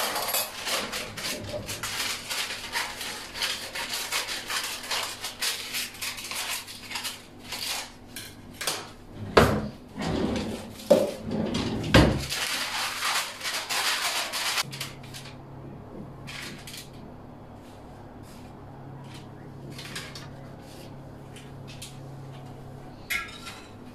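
Kitchen clatter of cutlery and cookware being handled: rummaging in a cutlery drawer, rustling and scraping, with three sharp knocks about ten to twelve seconds in. After about fifteen seconds it turns quiet, with only occasional light handling over a low steady hum.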